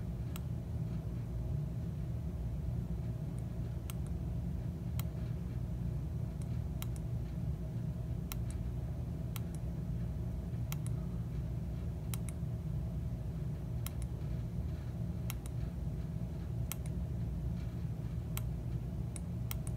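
Small tactile push buttons on a circuit board clicking, pressed one at a time about every second or so, over a steady low hum.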